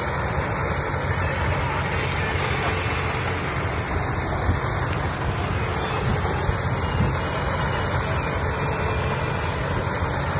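Maize harvester and a John Deere 5310 tractor running together while harvesting corn: a steady engine drone under a constant even noise of the machinery at work.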